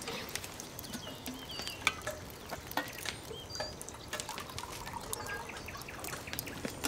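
Tea poured from a kettle into a tin mug, with scattered small crackles and clicks from a campfire of glowing embers and a few short bird chirps.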